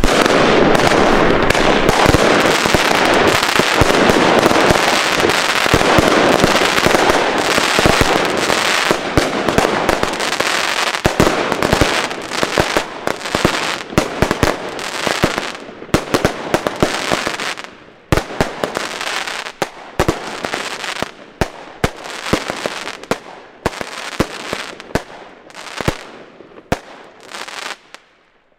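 A home-built compound of five Blackboxx fireworks batteries (two Boosterblume, two Schwarze Witwe and one Hypnotica) firing in a 360-degree fan. For about the first fifteen seconds there is a dense, continuous rush of shots and bursts. After that come single sharp bangs that thin out and stop just before the end.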